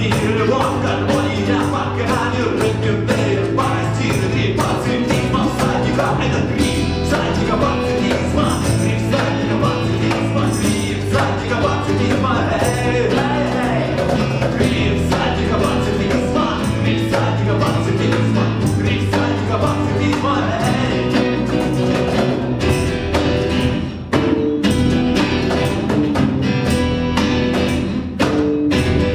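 Live acoustic band playing a song: acoustic guitars over a bass line with a steady percussive beat.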